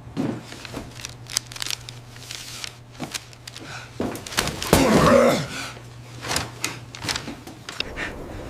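Scuffling indoors: a string of knocks and clatters over a low steady hum, with a short, loud wavering cry about five seconds in.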